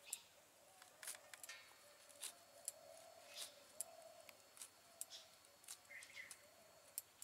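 Near silence: faint outdoor ambience with scattered short, high chirps and clicks.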